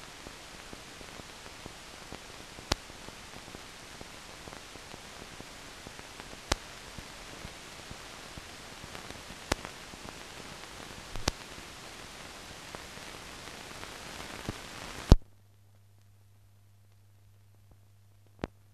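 Steady hiss and crackle of an old newsreel film soundtrack with no narration, with sharp clicks every few seconds. About fifteen seconds in, a loud click and the hiss cuts off, leaving only a faint low hum.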